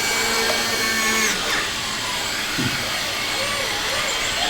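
Small electric motors of radio-controlled model construction machines whirring, with a steady hum that cuts off about a second in.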